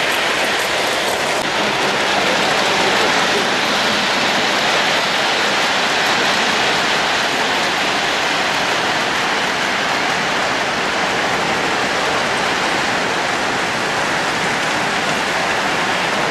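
Lionel O-gauge model trains running on metal three-rail track: a steady rushing hiss of wheels rolling, with no change in level.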